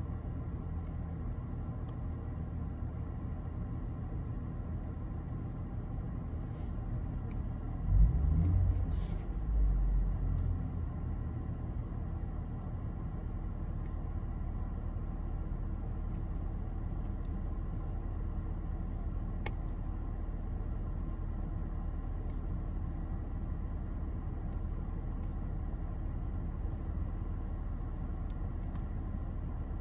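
Car engine idling steadily, heard from inside the cabin as a low, even hum. About eight seconds in there is a louder low bump, with another around ten seconds, and a single sharp click near twenty seconds.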